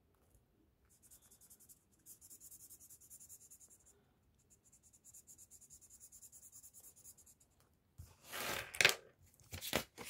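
Felt-tip marker scratching on notebook paper in quick back-and-forth colouring strokes, several a second, in two runs with a short pause. Near the end comes a louder rustle and a few knocks as the spiral notebook is handled and its page turned.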